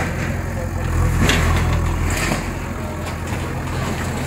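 Backhoe loader's diesel engine running with a steady low drone that weakens about halfway through, with people talking in the background.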